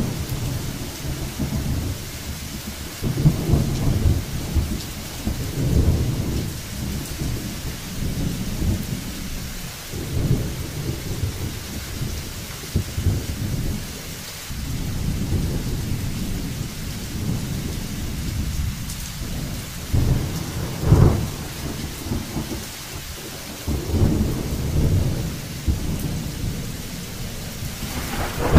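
Thunderstorm: steady rain falling, with low rolling thunder rumbling again and again, swelling louder several times. A loud thunderclap breaks right at the end.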